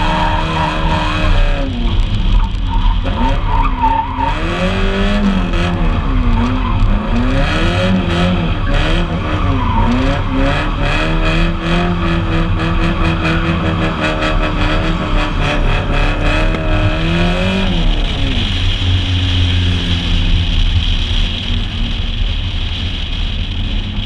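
Drift car's engine revving up and down again and again as the car slides, with tyres squealing on the pavement. About eighteen seconds in the squealing stops and the engine drops to a lower, steadier note as the car rolls off.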